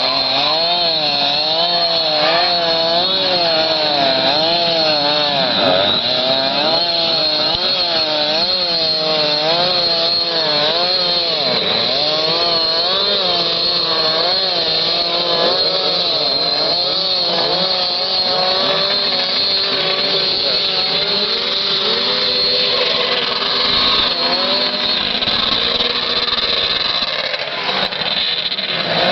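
Ski-Doo Mach Z 800 two-stroke triple snowmobile engine running loud, its revs rising and falling again and again, then holding steadier over the second half.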